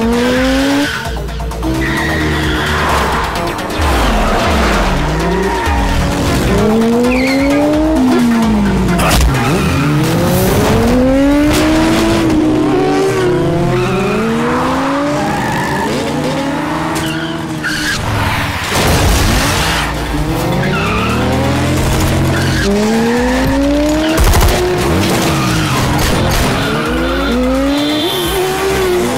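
Several motorcycle engines revving hard and passing at speed, their pitch climbing again and again as they shift up through the gears.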